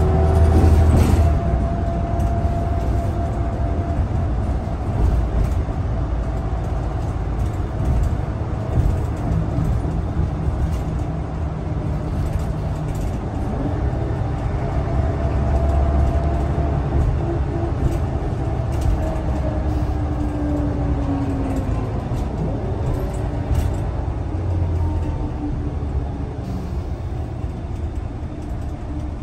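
Scania L94UB city bus heard from inside the passenger cabin while driving: a steady low rumble of engine and road, with an engine and driveline drone that rises and falls in pitch as the bus speeds up and slows.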